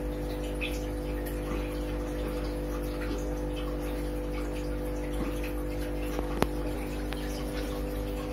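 Aquarium filter running: a steady hum under a light trickle of water with small drips. A single sharp click about six and a half seconds in.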